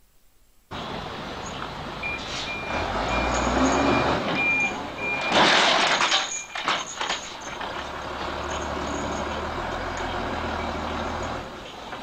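Truck loaded with bamboo poles manoeuvring with its engine running and a reversing alarm beeping about twice a second for a few seconds. A loud burst of hissing noise comes about halfway through, followed by a few sharp clacks and then the engine running steadily.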